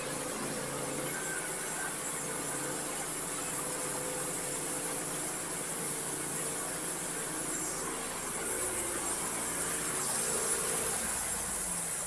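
Large custom-built band sawmill running, its engine humming steadily while the band blade cuts through a wide maple log, with a steady high hiss from the blade in the wood.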